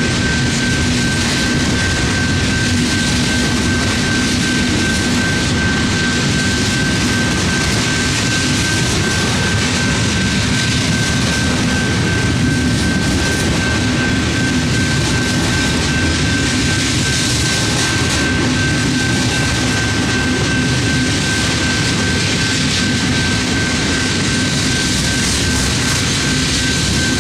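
Freight cars of a long freight train rolling past a grade crossing: a steady, loud rush of wheels on rail, with a thin steady high tone held throughout.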